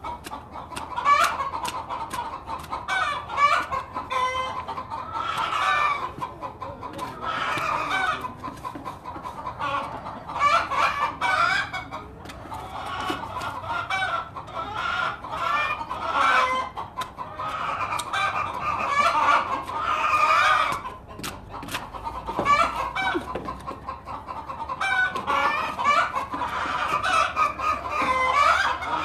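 A flock of chickens clucking and squawking without pause, many short calls overlapping.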